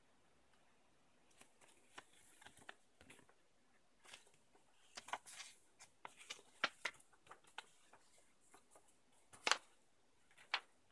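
Packaging being handled during an unboxing: irregular soft rustles and light clicks, the loudest about nine and a half seconds in.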